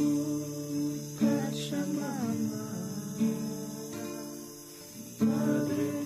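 Slow acoustic guitar music, chords strummed and left to ring, with a new chord about a second in and another near the end.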